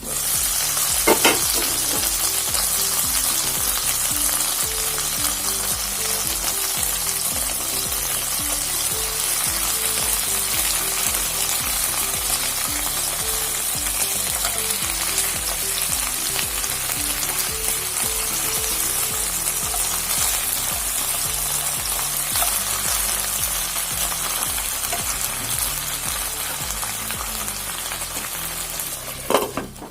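Pomfret frying in hot oil in a pan, a steady sizzle, with a utensil knock about a second in and again near the end.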